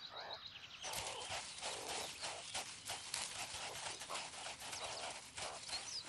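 Meerkat digging in loose sand with its claws: rapid, uneven scratching and scraping strokes that begin about a second in.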